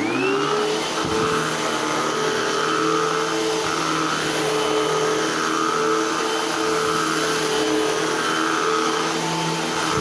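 Eureka AirSpeed Unlimited Pet vacuum cleaner switched on: its motor spins up with a short rising whine, then runs steadily.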